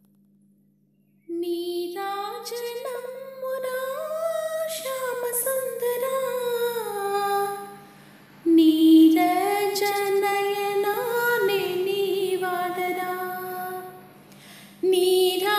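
Devotional song: a woman's voice singing long, ornamented phrases over a steady low drone. The singing starts after about a second of silence and breaks briefly about halfway and again near the end.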